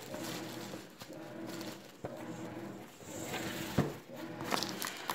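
Tissue paper rustling and crinkling as a packed box is unpacked by hand, with a couple of light knocks, over a faint steady hum.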